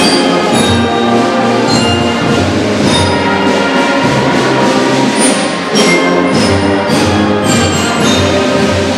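A large school band of brass, woodwinds and drums playing a piece together, with full sustained chords over a steady drum beat.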